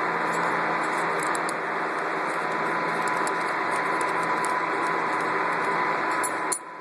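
Steady hiss with a thin steady whine and a low hum, which cuts off abruptly near the end, with faint light clicks of small hand-tool and screw work on the sewing machine's clamp mount scattered through it.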